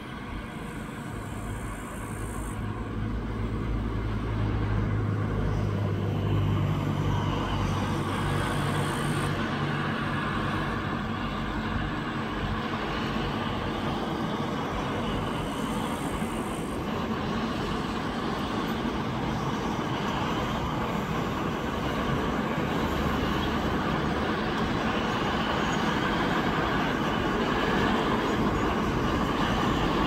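Steady rumbling noise that builds over the first five seconds, with a low hum in the first several seconds.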